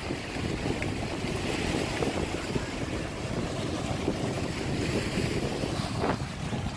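Wind rumbling on the microphone over small waves washing and breaking against a rock and pebble shore.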